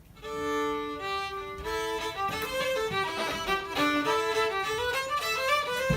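Fiddle playing an Irish reel. It opens with a long held chord, two notes bowed together, then breaks into the quick running melody about a second and a half in.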